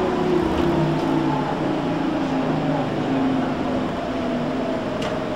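Electric trolleybus heard from inside the cabin: the traction motor's whine over road noise, its pitch drifting slowly down.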